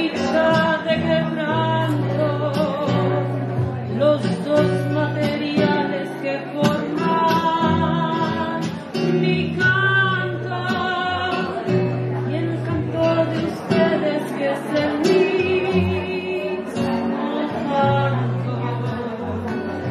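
A woman singing, with guitar accompaniment.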